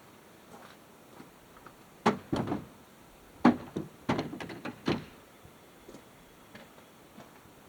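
A series of knocks and thumps, as of a door or hard objects being handled: a cluster about two seconds in, the loudest knock about three and a half seconds in, and another run of knocks just after four seconds.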